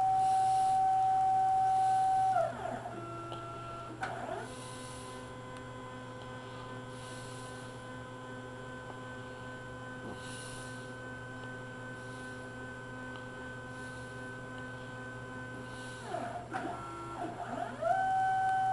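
Stepper motors driving the axes of a CNC-converted Harbor Freight 9x20 lathe, whining at a steady pitch that tracks the feed speed. About two seconds in the whine sweeps down and back up as the motion slows and changes, settling into a quieter, lower whine; near the end it sweeps again and returns to the louder, higher whine.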